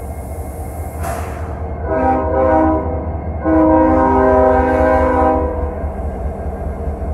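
Ferromex diesel locomotive sounding its multi-chime air horn twice, a short blast and then a longer one of about two seconds, over the steady low rumble of its engine as it rolls past close by.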